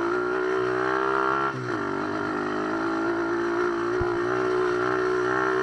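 KXD 125 cc pit bike engine running steadily at high revs while riding, the revs dipping briefly about a second and a half in and then picking up again. A single thump about four seconds in.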